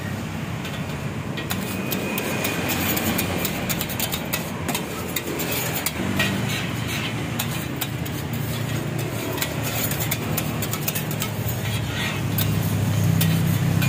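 Wide metal scraper scraping and clicking against a flat steel griddle as a stack of bread toasts, over steady street traffic noise. A low hum grows louder near the end.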